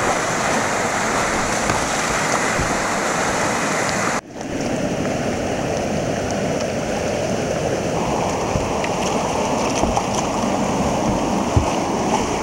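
Whitewater rapids rushing, a steady dense noise of churning water close to the microphone, broken by a sudden brief dropout about four seconds in.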